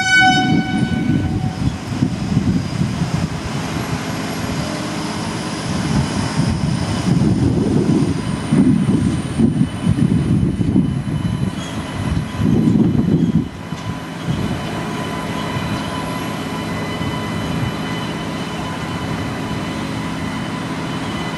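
WAP-7 electric locomotive running light at low speed: a horn blast that ends about a second in, then a low rumble that swells and fades, with a faint steady whine.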